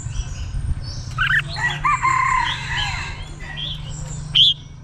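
Oriental magpie-robin chirping and giving whistled song phrases, with a single sharp loud note near the end, over a steady low hum.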